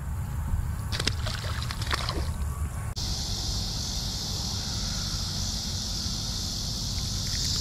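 A bass released at the water's edge, splashing briefly about a second in and again near two seconds. From about three seconds in, a steady high insect chorus over a low rumble.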